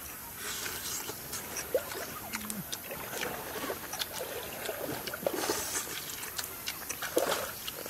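Close-up eating sounds: lip smacking, sucking and chewing on pieces of cooked snake meat held by hand, a quick series of short wet clicks and smacks. Shallow stream water trickles under it.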